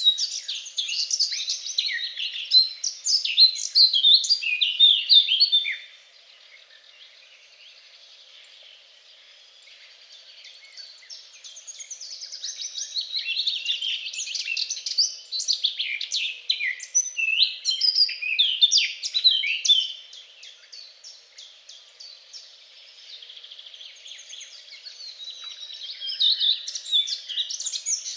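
Songbirds singing long runs of rapid, varied chirping notes, broken by two quieter stretches, about six seconds in and about twenty seconds in.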